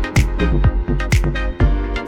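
Electronic background music with a steady beat: a low kick drum about twice a second and sharp hi-hat or clap hits over sustained synth notes.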